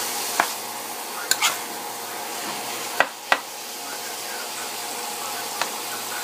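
Ground turkey sizzling in a nonstick frying pan as a spoon stirs and breaks it up, with a steady hiss and several sharp scrapes and taps of the spoon on the pan. The loudest are two taps about three seconds in.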